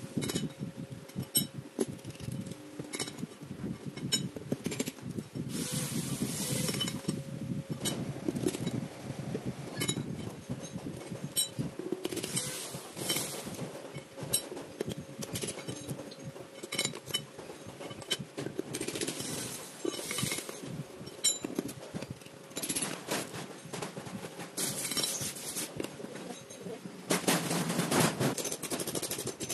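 A small hammer tapping steel parts into cycloid reducer housings: irregular metallic clinks and knocks, with a faint steady hum underneath.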